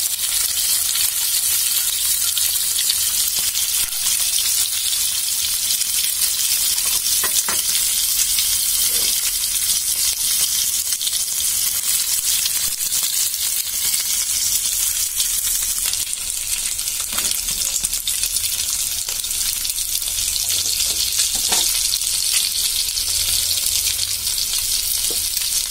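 Peeled boiled eggs frying in hot oil in a nonstick pan: a steady high sizzling hiss, with a few brief knocks in the pan.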